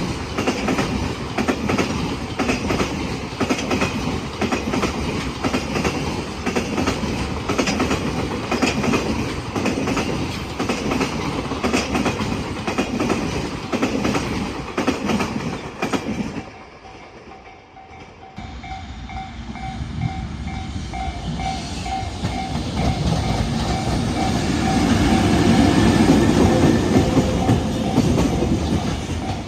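Freight train passing over rail joints, its wheels clattering heavily. It clears about two-thirds of the way through, leaving a brief lull. A level-crossing alarm then rings in quick, even strokes while another train approaches and grows louder toward the end.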